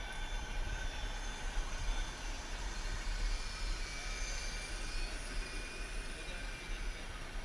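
Radio-controlled scale model trucks running, a steady mechanical noise with faint high whines over a constant low hum.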